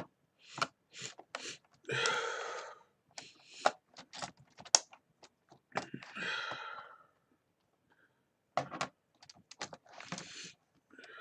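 Scattered sharp plastic clicks and taps from the parts of a computer keyboard being handled and pried apart, with three longer scraping, rustling noises of about a second each.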